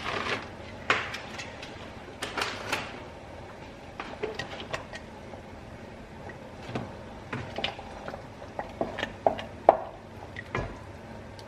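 Kitchen utensils clinking and knocking against cookware, a string of irregular short clicks and taps with one louder knock near the end.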